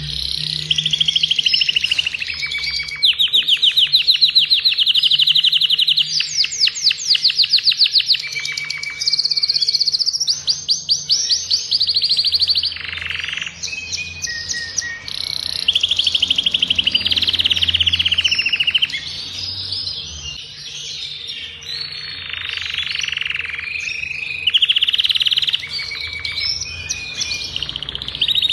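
Adult male domestic canary singing a long, unbroken song of rapid trills and rolls. Each run of fast repeated notes lasts a second or two before the bird switches to a new pitch.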